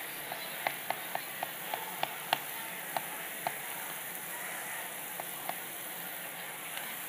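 Knife knocking on a cutting board while slicing: about a dozen quick, irregular taps in the first three and a half seconds and a few more later. Beneath them, the steady sizzle of onions and vegetables frying in oil in hot pans.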